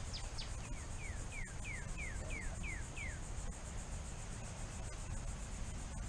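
Insects trilling steadily and high-pitched. Over the first three seconds a bird sings a quick series of about a dozen short whistled notes, each sliding downward.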